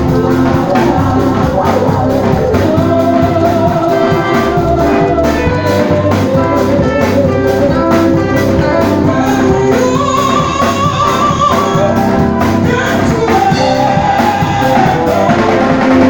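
Live gospel praise music from a church band of drum kit, keyboard and electric guitar, with a voice singing over a steady drum beat.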